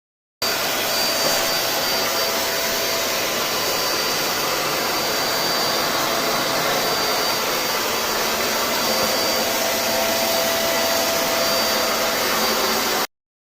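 HTEX H-1 corded vacuum cleaner running steadily: an even rushing of air with a faint high whine. It starts and cuts off abruptly.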